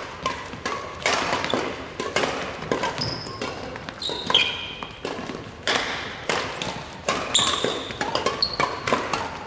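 Badminton rally: sharp racket-on-shuttlecock hits coming about once a second, with short high squeaks of court shoes on the wooden floor between them.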